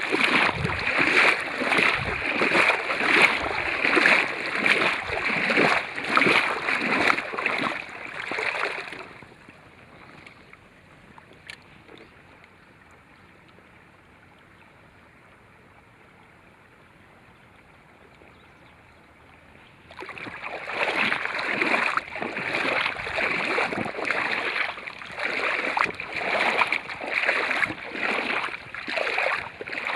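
Water splashing and rushing in uneven pulses, dropping to a faint hush for about ten seconds in the middle before starting up again.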